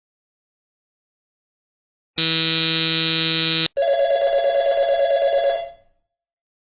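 A loud, steady electric buzzer sounds for about a second and a half, then a telephone bell rings with a fast trill for about two seconds.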